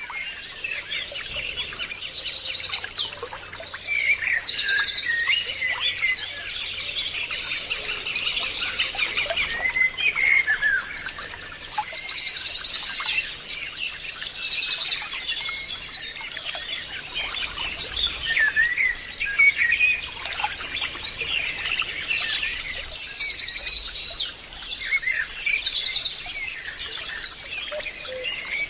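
Several songbirds chirping and singing, with a fast trilled phrase that comes back about every ten seconds. A faint steady high whine runs underneath.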